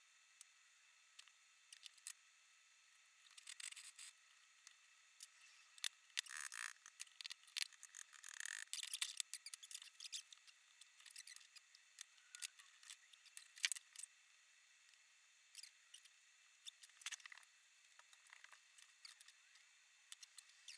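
Faint scattered clicks and plastic crinkling from hands handling 3D-printed blaster parts and a zip-lock bag of screws and nuts, with a louder run of crinkling between about six and nine seconds in.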